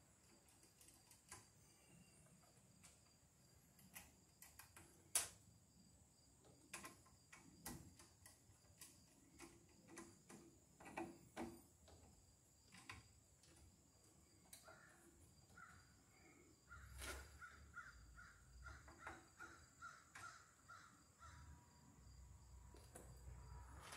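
Faint scattered clicks and ticks of a screwdriver and stiff copper wire as a stripped 14-gauge wire is fastened under a circuit breaker's terminal screw. Partway through, a rapid run of short, evenly repeated calls lasts several seconds.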